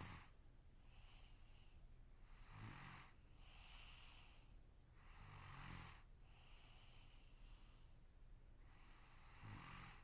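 A sleeping person snoring quietly: a low, rattling snore about every three seconds, four in all, with a softer, breathy hiss between each.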